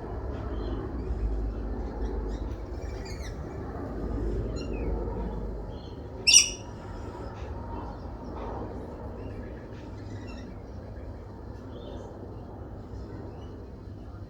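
Small songbirds at a feeder chirping and calling on and off, with one loud, sharp call about six seconds in. A low rumble underneath fades out near the middle.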